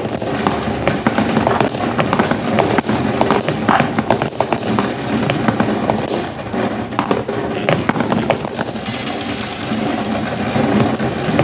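Glass marbles rolling down a marble run track: a continuous rolling rumble with many rapid clicks and clacks as the marbles knock against the track and each other.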